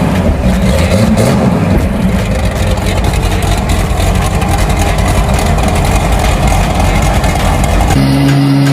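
Turbocharged Chevrolet Caravan engine running loud, with a deep, busy exhaust rumble; near the end it settles into a steadier, even note.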